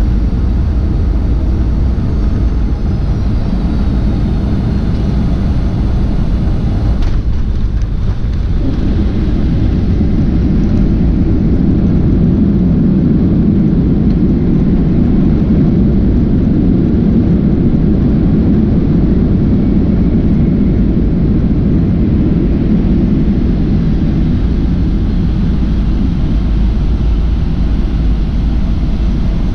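Boeing 757-200 cabin noise: a steady rumble of jet engines and rushing air. The low rumble grows heavier after a sudden break about seven seconds in.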